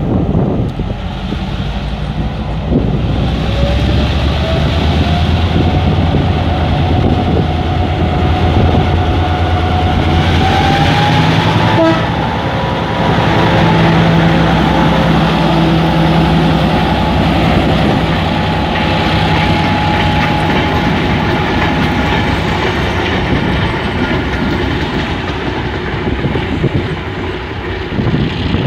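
Diesel locomotive hauling a passenger train, running loudly as it approaches, passes close by, and moves away. A thin whine rises slowly in pitch as it comes on, and the engine note shifts lower in the mix as it goes by.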